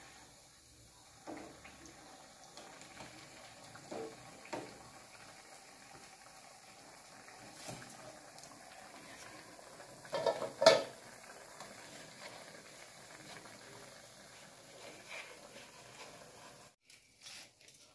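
Sel roti deep-frying in a wok of hot oil, a steady sizzle, with occasional knocks of the wooden turning stick against the metal pan and bowl; the loudest is a quick cluster of knocks about ten seconds in. The sizzle stops abruptly near the end.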